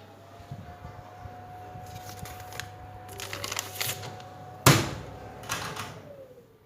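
Rustling and clicking handling noises with one sharp knock about four and a half seconds in, over a faint steady hum.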